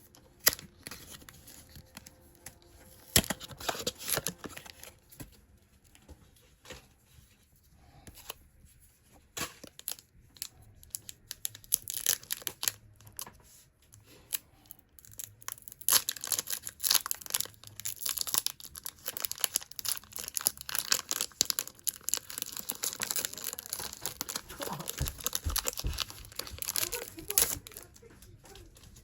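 Foil wrapper of a Pokémon card booster pack being torn open and crinkled, with scattered crackles and clicks from handling it. The crinkling gets dense and steady in the second half.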